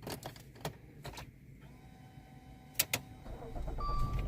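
Dodge Dart being switched on: a few clicks, then two sharp clicks about three seconds in, after which the engine starts and runs with a low rumble. A short electronic beep sounds near the end.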